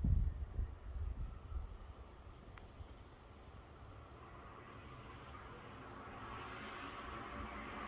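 A low rumble of distant thunder at the start, dying away within about two seconds, over a steady high cricket trill. From about halfway through, a hiss grows steadily louder.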